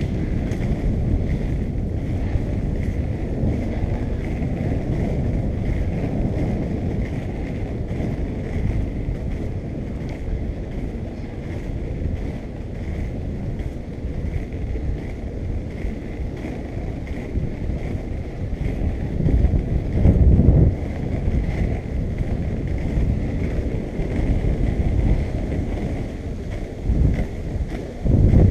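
Skate wheels rolling steadily over a rough asphalt path, a continuous low rumble with wind buffeting the microphone, and a couple of louder bumps about twenty seconds in and near the end.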